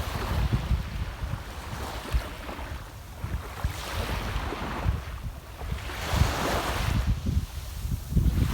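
Sea waves breaking and washing onto the shore, the surf hiss swelling and falling several times, with wind buffeting the microphone.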